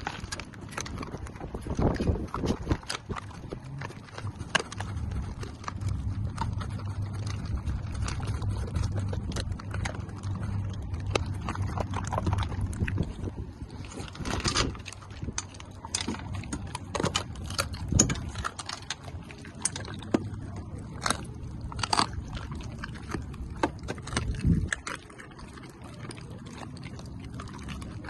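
A Belgian Malinois pup and a German Shepherd pup eating raw food and kibble from stainless steel bowls: wet chewing and crunching with many sharp clicks of kibble and teeth against the metal bowls. A low steady rumble runs underneath for several seconds near the middle.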